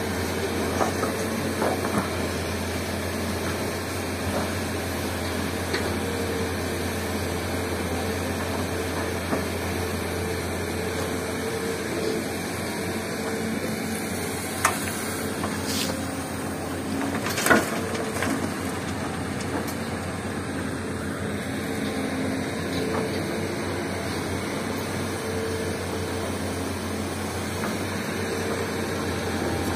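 Komatsu hydraulic crawler excavator's diesel engine running steadily while it digs rock and loads a dump truck, with a few sharp knocks of the bucket and rock, the loudest about 17 seconds in.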